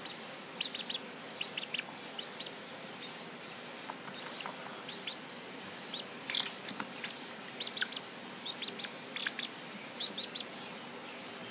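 Bird chirps: short, high peeps in quick clusters of two to four, repeating every second or so over a steady hiss. A brief sharp click about six seconds in.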